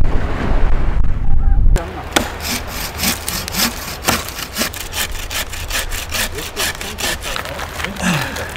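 Low wind rumble on the microphone for about the first two seconds, then a wooden-framed bow saw cutting through a pine branch in quick, regular strokes, about three a second.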